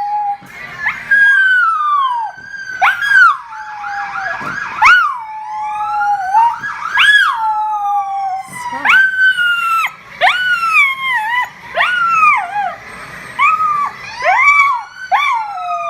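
A dog howling along with emergency-vehicle sirens: a string of loud wails, each jumping up sharply and sliding back down, coming irregularly every second or two.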